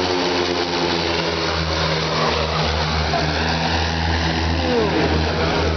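Propeller piston engines of a formation of vintage Bücker biplane trainers, running steadily as they fly a display pass.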